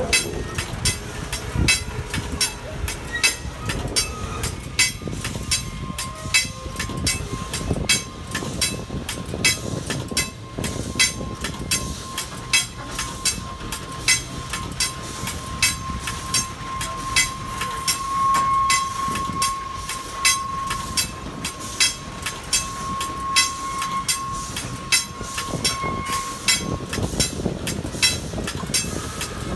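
Heavyweight steel passenger coaches rolling slowly past, their wheels clicking over rail joints at about two to two and a half clicks a second. A steady high squeal joins in for most of the pass and is loudest a little past the middle.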